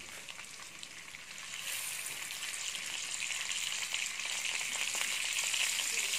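Butter sizzling as a pat of it melts in a hot wok over browned chicken drippings, the sizzle swelling about two seconds in as the butter goes into the pan.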